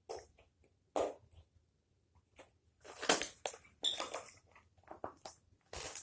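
Handling noises of toy packaging and items: scattered short rustles and clicks, sparse at first and coming thicker in the second half.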